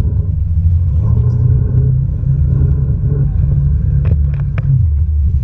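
Jet ski engine running with a steady low rumble, and a few sharp knocks about four seconds in.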